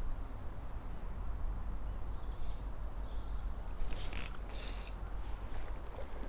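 Fly line being stripped in by hand through the rod guides while playing a hooked trout, two short rasping zips about four seconds in, over a low steady rumble.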